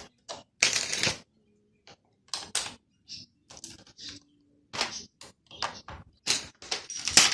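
Plastic Lego pieces clicking and clattering in irregular short bursts as they are handled and snapped into place, with a longer rattle about a second in.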